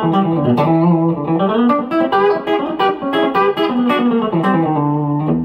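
Fender Telecaster electric guitar played through an amp, a country chicken-pickin' lick of quick single notes with sharp plucked attacks and string bends, ending on a held low note.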